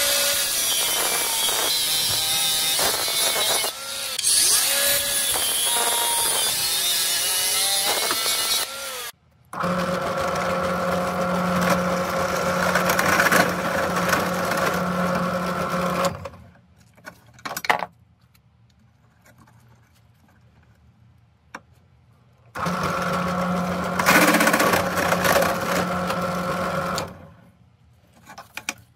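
An angle grinder cutting steel runs for about the first nine seconds, its pitch wavering under load. Then a drill press runs with a steady hum while it bores a hole in a steel block. It stops for several seconds, broken by a few clicks, and runs again for about four seconds near the end.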